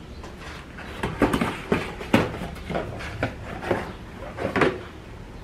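Handling of a new plastic coolant expansion tank as it is picked up: a string of about ten light knocks and rustles over three to four seconds.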